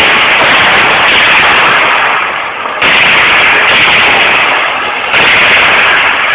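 Dense, crackling gunfire, loud and overloaded, in continuous stretches that restart sharply about three seconds in and again about five seconds in.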